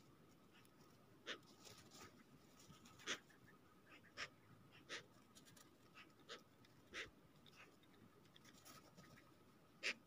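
Magpies pecking at food on snow close by: short, sharp taps at irregular intervals, about one every second, over a faint steady hum.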